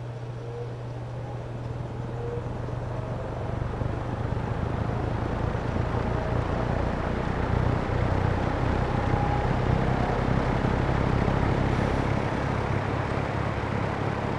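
Lakewood P-20 20-inch box fan starting up on low speed, its motor humming with a faint whine that rises as the blades come up to speed. It is soon drowned by a passing locomotive's rumble, which swells from about two seconds in and stays loud.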